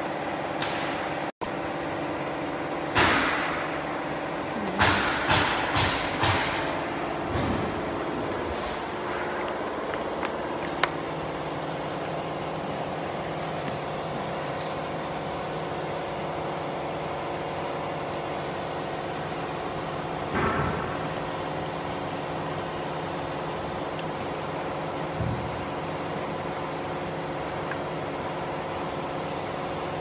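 Steady hum of a laser marking machine running, with a few sharp clicks and knocks of handling: a cluster early in the first quarter and single knocks later on.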